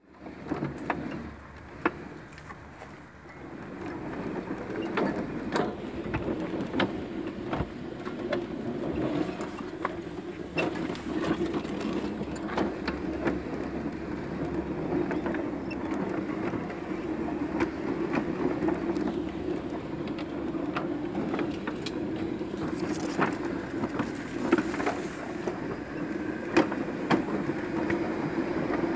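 A 1:8 scale model locomotive chassis running along its track: a steady drive hum with frequent irregular clicks and knocks from the wheels and running gear on the rails, getting louder about three seconds in.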